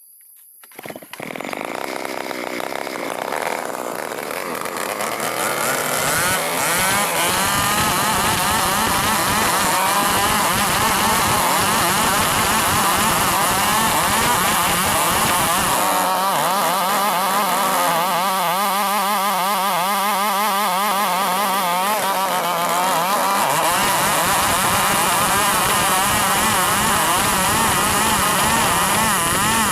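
A 105cc chainsaw starts about a second in and runs at high revs, sawing lengthwise through timber, its pitch wobbling up and down as it cuts.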